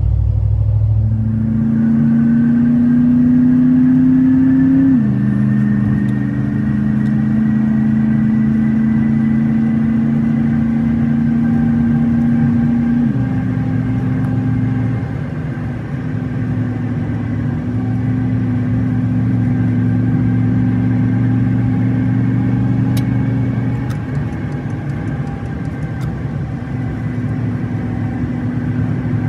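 Chevrolet Silverado pickup heard from inside the cab while driving on a highway: a steady engine and road drone. The pitch climbs for the first few seconds, then drops suddenly about five seconds in as the automatic transmission shifts up, and settles again after another small change partway through.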